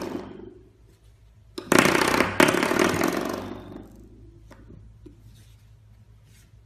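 Spring door stop being flicked by a puppy and twanging, each strike ringing and dying away: a weak one at the start, then a loud one about a second and a half in, struck again just after and fading over about two seconds.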